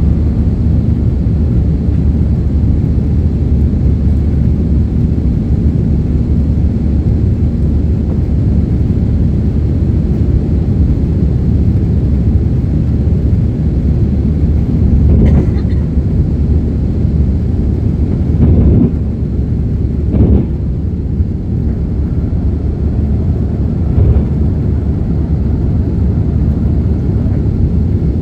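Steady cabin noise of an aircraft climbing after takeoff: engine and rushing airflow heard from inside the cabin. A few brief knocks come about halfway through.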